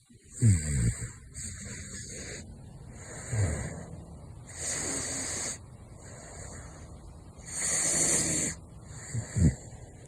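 Caracal snoring in its sleep: about five hissing breaths a couple of seconds apart, a few of them with a short low snort.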